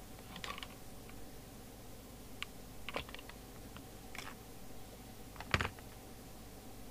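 Scattered light clicks and taps from handling equipment on a workbench, the loudest a knock about five and a half seconds in, over a faint steady hum.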